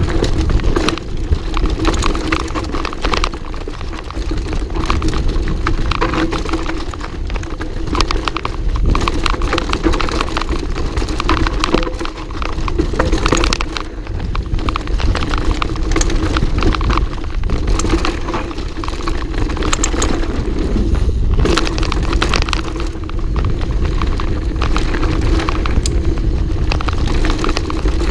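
Enduro mountain bike descending a dirt forest trail, heard from a rider-mounted GoPro Hero4: constant rattling and clattering of the bike over roots and bumps over a low rumble of tyres and wind.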